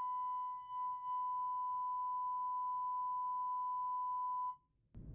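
Steady 1,000 Hz test tone played through a single 6.5-inch car-door woofer driven straight from a head unit at full volume, for an SPL measurement of about 112 dB at close range. Faint higher overtones sit above the tone, it wavers briefly about a second in, and it cuts off suddenly near the end.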